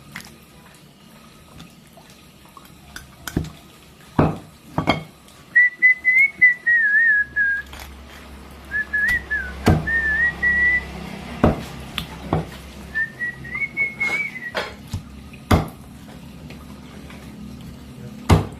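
A person whistling a wavering tune in three short phrases. Sharp knocks are scattered in between.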